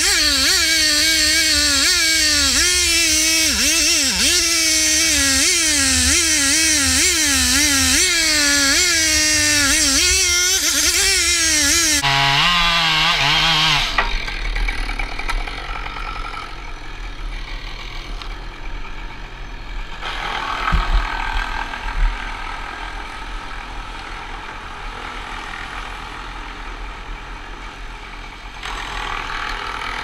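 Petrol chainsaw cutting through a macrocarpa stem, its engine speed wavering under load. About twelve seconds in it drops to idle and then stops, leaving a quieter steady engine running underneath, with two knocks a second apart.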